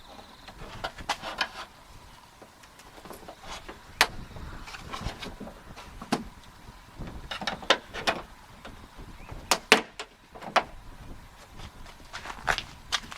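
Sharp plastic clicks and snaps at irregular intervals, about a dozen in all, as the plastic retaining clips of a 2002 Honda Odyssey's rear hatch trim panel are pried loose and the panel is handled.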